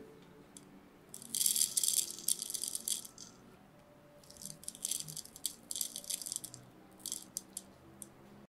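Chocolate sprinkles dropped and scattered by hand onto chocolate balls in a wooden bowl, a dry rattle in two spells of about two and three seconds, with a few separate ticks.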